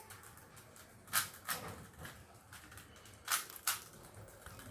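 Standard 3x3 Rubik's cube being twisted by hand. Its plastic layers give two pairs of sharp clacks, about a second in and again about three and a half seconds in, with faint rattling between.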